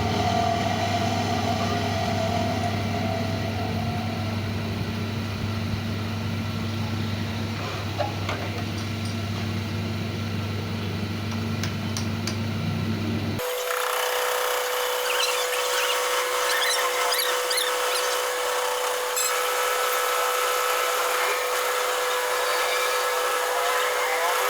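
Lathe running with a steady low hum. About halfway through it switches abruptly to a higher steady whine with irregular high scratchy sounds, typical of a cutting tool turning metal.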